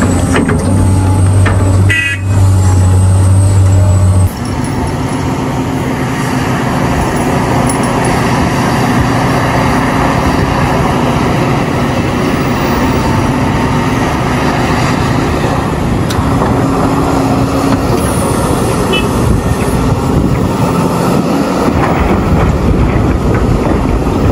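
Large Caterpillar hydraulic excavators working at a truck-loading site: loud, steady diesel machinery noise. A deep, even engine hum fills the first four seconds, then the sound changes suddenly to a rougher, steady rumble.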